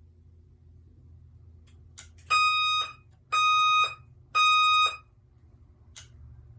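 Fire alarm horn sounding three short, loud blasts about a second apart: the temporal-three evacuation pattern. A sharp click comes just before the first blast and another shortly after the last.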